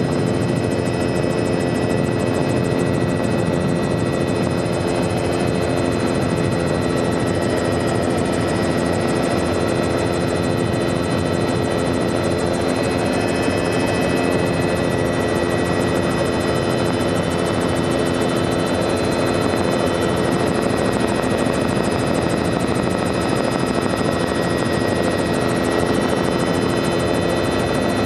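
Helicopter in flight, heard from inside the cabin: a steady drone of engine and rotor with several high, steady whining tones over it.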